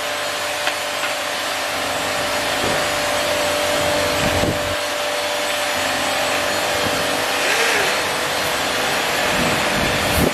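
Electric rotary car polisher with a foam pad running steadily on car paint, a constant motor whine over a hiss. It is machine-polishing the paint to take out light scratches.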